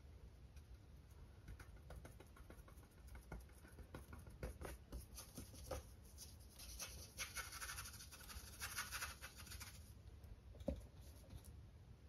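Faint scratching and tapping of a flat paintbrush dabbing acrylic paint onto a canvas board, scratchiest for a few seconds past the middle. A single sharper click near the end.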